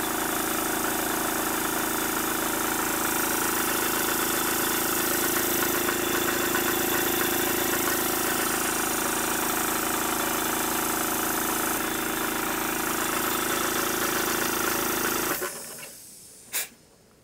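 Live-steam model locomotive's engine running steadily on compressed air, with a dense hiss of exhausting air, working its axle pump to feed water into the boiler. It stops about fifteen seconds in, followed by a couple of light clicks.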